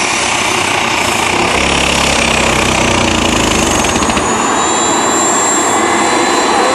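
Mini-class pulling tractor's engine running flat out as it hauls the pulling sled down the track, a loud steady noise with a high whine over it that rises a little in pitch about four seconds in.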